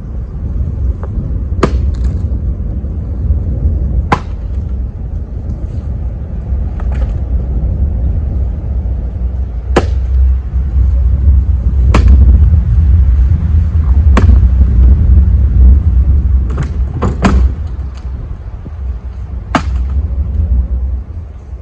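Sharp wooden knocks of firewood being handled, about eight of them at irregular intervals of roughly two seconds, two close together just after the middle. A steady low wind rumble on the microphone runs underneath.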